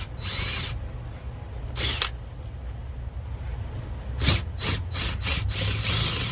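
A power drill's bit grinding in bursts against the wooden boat deck as it is rocked to wallow out an undersized hole for a well nut. There are two separate bursts, then a quick run of them from about four seconds in, over a steady low hum.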